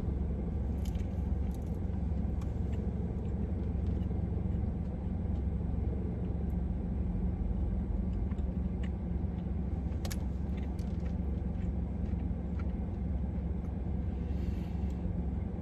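Steady low rumble of a car's engine idling, heard from inside the cabin, with a few faint clicks and rustles.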